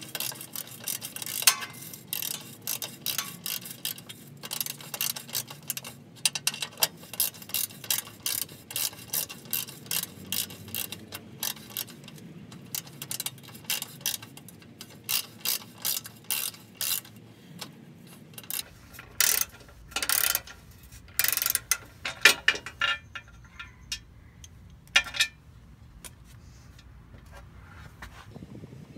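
Ratchet wrench clicking in quick runs as the bolts holding the evap canister are backed out. The clicking thins to a few short bursts about two-thirds of the way through.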